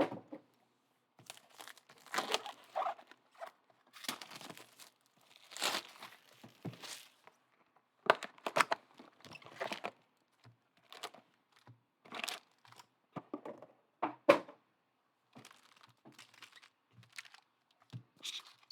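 Trading card pack wrappers being torn open and crinkled, in irregular rustling bursts with short pauses, and one sharper snap about fourteen seconds in.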